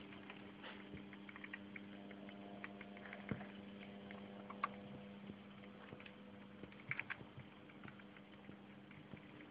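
Model train set running: a faint steady electrical hum, with scattered light clicks and ticks.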